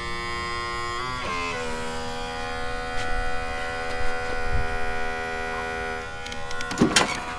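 Small electric fuel pump running steadily as it fills a model airplane's fuel tank, a whine that drops in pitch about a second in as the fuel starts to flow. A couple of knocks near the end.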